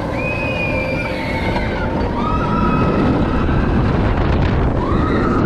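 Vekoma suspended family coaster train running along its steel track, with wind rushing over the microphone and a steady rumble from the ride. Several drawn-out high squeals sit on top, one near the start, one in the middle and one rising near the end.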